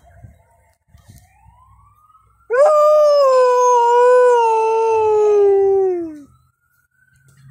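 Alaskan Malamute giving one long howl, about three and a half seconds, starting about two and a half seconds in and sliding slowly down in pitch. It answers a faint ambulance siren that rises in pitch before and after the howl.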